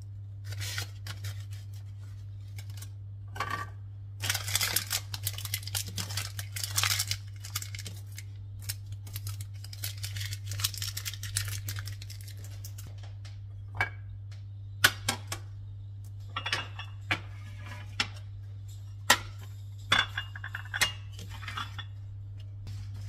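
Kitchen handling sounds: dishes and utensils clinking and scraping, with rustling early on and several sharp clinks in the second half, over a steady low hum.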